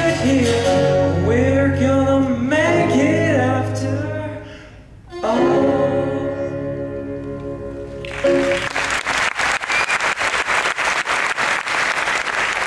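Small live band of guitars, bass and keyboard with male voices singing the last line of a song; after a brief pause they hold a final sung chord for about three seconds. Audience applause breaks out about eight seconds in and continues.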